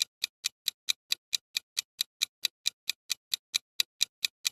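Countdown timer sound effect ticking like a clock: sharp, evenly spaced ticks, about four and a half a second.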